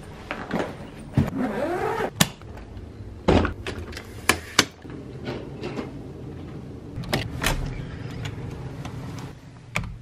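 A hard-shell suitcase being shut and handled: a thump about a second in as the lid comes down, then a string of sharp clicks and knocks from the shell and its fittings, over a steady low hum.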